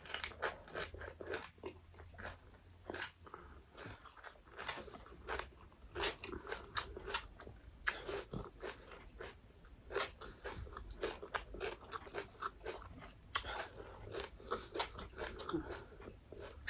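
Close-up crunching and chewing of crisp fried fish: irregular crackly bites and mouth clicks, several a second.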